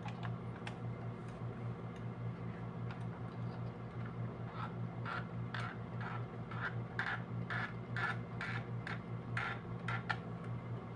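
Sewing machine running with a steady, quickly pulsing hum. From about halfway through it adds regular clicks, about two a second.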